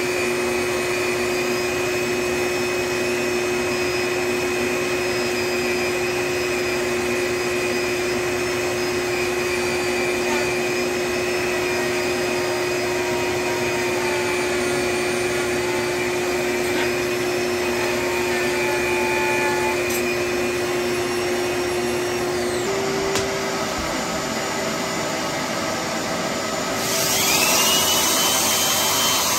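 A vacuum motor running steadily with a constant whine. Near the end its note shifts and a brighter rasping sound comes in, of abrasive rubbing against plaster.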